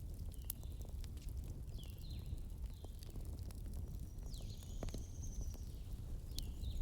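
Wood fire crackling, with scattered sharp pops over a steady low rumble. Birds chirp in the background: several short calls and one longer whistled note about two thirds of the way through.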